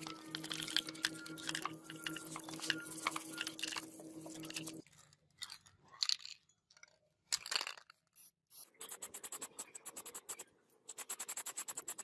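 Toothbrush scrubbing rusty angle-grinder parts in a bowl of cleaning liquid: wet, scratchy brushing with a steady low hum behind it. About five seconds in it changes to a few short hisses of spray paint on the parts, then a fast, regular rattle near the end.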